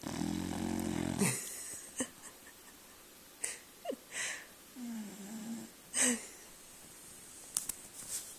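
A sleeping pet snoring: one long low snore at the start, then a string of short wheezy snorts and breaths, with a brief falling squeak about four seconds in.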